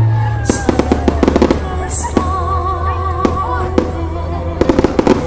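Fireworks going off: single bangs and rapid crackling clusters, the crackles thickest near the start and again near the end. Music plays underneath.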